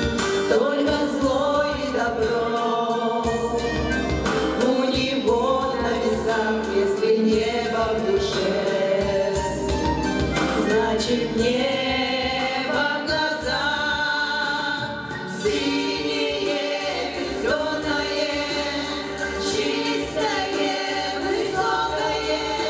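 A female vocal quartet singing a song together in harmony through handheld microphones.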